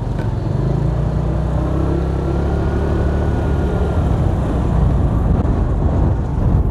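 Motor scooter riding at low speed: a steady low rumble of engine and road noise, with air buffeting the microphone.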